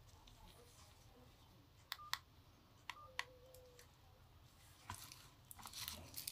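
Nokia 105 keypad buttons pressed twice, about a second apart; each press is a sharp click with a short beep from the phone, followed near the end by soft handling noise as the phone is set down.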